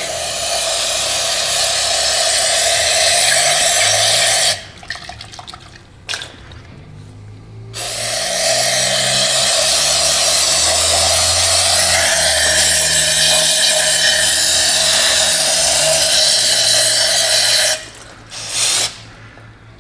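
An aerosol can of CRC brake parts cleaner sprays in long hissing blasts through its straw, flushing algae and sediment out of a diesel fuel filter bowl into a drain pan. The spray stops about four and a half seconds in, gives a brief puff, and resumes for about ten seconds. It stops again and ends with one short spurt near the end.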